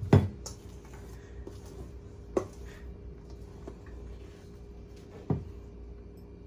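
Spatula working thick pandan waffle batter in a stainless steel bowl, knocking against the bowl three times, roughly every two and a half seconds, the first knock the loudest. A steady hum runs underneath.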